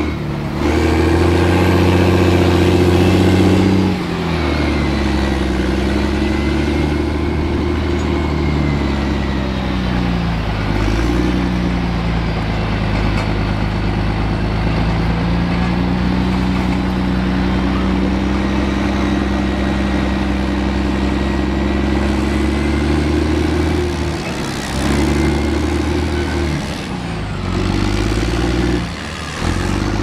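M113 armoured personnel carrier's engine running loud and steady under load, its pitch falling away and climbing again several times as the throttle is eased off and reopened.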